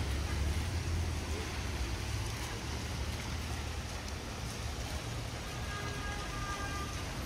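Rainy city street ambience: traffic on a wet road and rain noise as a steady hiss over a constant low rumble, with a faint high tone near the end.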